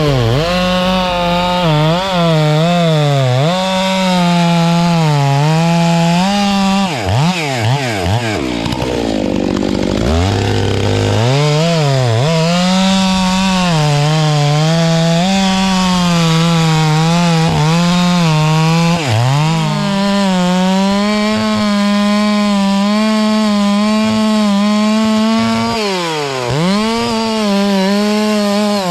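Stihl MS 661 C chainsaw's two-stroke engine running at high revs while cutting jarrah logs, its pitch wavering up and down as the chain bites. The revs drop sharply and climb back several times, most deeply about a third of the way in.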